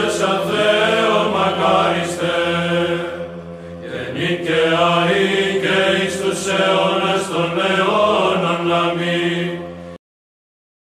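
Byzantine choir chanting a Greek Orthodox hymn: a melismatic sung melody over a steady low held drone note (the ison). It cuts off abruptly about ten seconds in.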